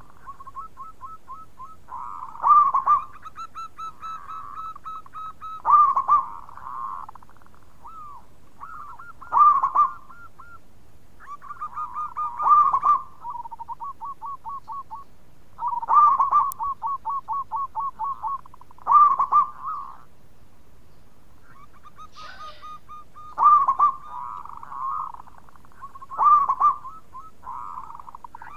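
Zebra dove (perkutut) singing its cooing song in repeated phrases. Each phrase opens with a loud coo, about every three seconds, and runs into a quick series of short, clipped notes.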